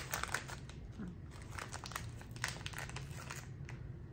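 Crinkly snack bag of Made Good mini chocolate chip cookies being handled as a cookie is taken out: quick crackling crinkles that die down about three and a half seconds in.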